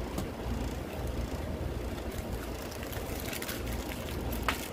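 Clear plastic packaging being handled, giving crinkles and light clicks that grow busier in the second half, with a sharper click near the end, over a steady low rumble.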